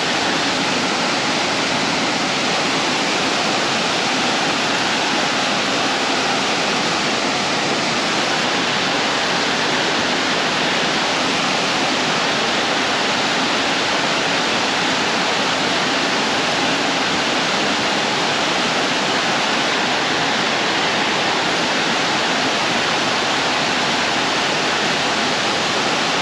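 Creek water rushing, a loud, steady, unbroken noise.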